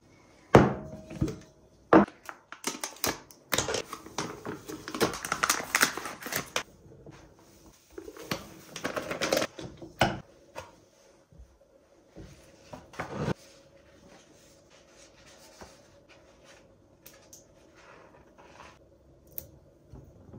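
Kitchen handling sounds: a few sharp knocks of glass and wood, and a stretch of rustling and pouring as dry white food is decanted from its packet into a ribbed glass jar. The jar's bamboo lid is knocked into place. The second half is quieter, with only light handling while a label is pressed onto the lid.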